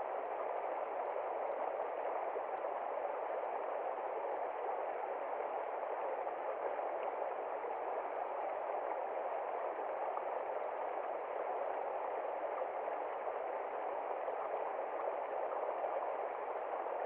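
Mountain stream flowing and gurgling steadily over rocks.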